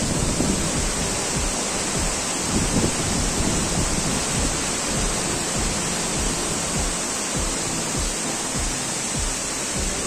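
Bambarakanda waterfall rushing in a steady, unbroken wash of water noise, its flow swollen by days of rain. Irregular low thumps of wind buffet the microphone.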